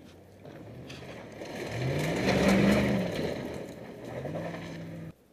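Pickup truck speeding past on a dirt trail, its engine revving with a rising note that peaks about two and a half seconds in, followed by a second climb in engine pitch before the sound cuts off abruptly near the end.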